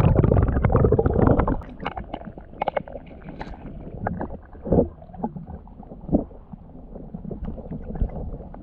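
Digging for a metal detector target in soil, heard as scattered scrapes and knocks, the sharpest about two-thirds of the way through. A loud low rumble on the microphone fills the first second and a half.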